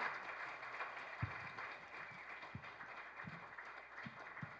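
Audience applauding, loudest at the start and slowly dying away, with a few soft low thumps.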